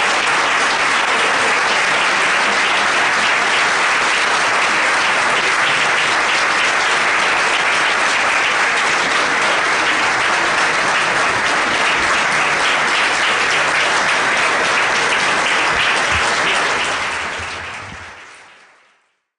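A crowd of people applauding steadily, dense clapping with no break, fading out near the end.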